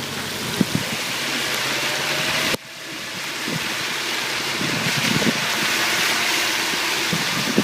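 Subaru WRX driving through snow on snow tyres: a steady hiss of tyres and snow spray over the engine, with a few short knocks. The sound drops sharply about two and a half seconds in, then builds back up.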